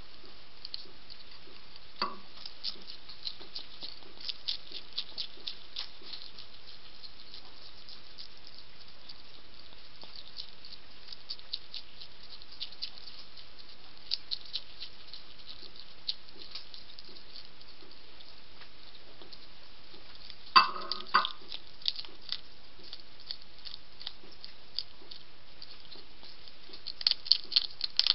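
A European hedgehog crunching dry food from a plate, in bouts of fast, crisp chewing clicks. About two-thirds of the way through there is one louder knock.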